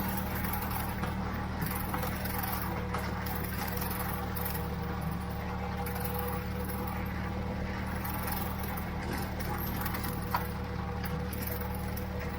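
Ford 3600 tractor engine running steadily at constant speed while pulling a Brush King rotary bush hog mower through tall grass.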